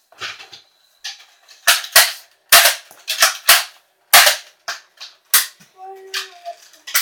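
Toy foam-dart blaster fired again and again: about a dozen sharp pops, each with a short hiss, at an irregular pace.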